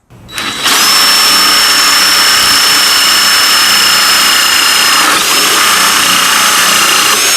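Cordless drill running a 3/4-inch hole saw at steady speed: a high motor whine over dense cutting noise. The pitch sags briefly about five seconds in, then picks back up.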